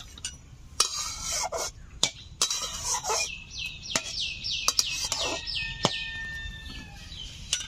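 Chickens clucking, then a small bird calling a quick run of falling chirps, with a few sharp knocks in between.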